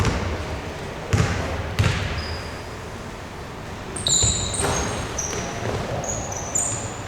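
Basketball bouncing on an indoor court with three sharp thuds in the first two seconds, then sneakers squeaking on the hardwood floor in short high-pitched chirps through the second half.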